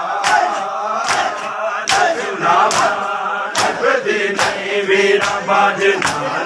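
A crowd of men chanting a noha (lament) in unison, with rhythmic chest-beating (matam): the hand slaps on bare chests land together in a steady beat a little faster than once a second.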